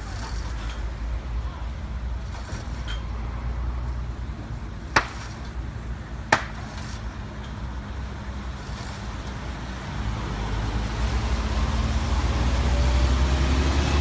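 Steady rumble and tyre hiss of a car driving on a wet expressway, growing louder over the last few seconds. Two sharp cracks stand out, about five and six seconds in.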